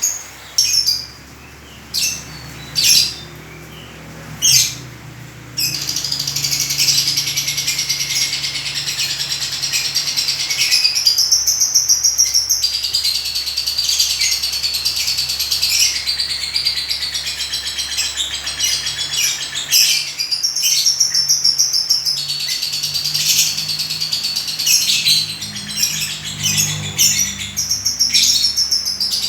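Pet lovebird calling: about five sharp, separate chirps, then from about five seconds in a continuous rapid, high-pitched chattering twitter.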